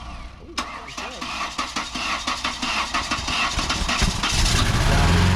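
Car engine, with water mixed into its oil, cranking on the starter in quick repeated strokes, then catching about four seconds in and rising into a steady run.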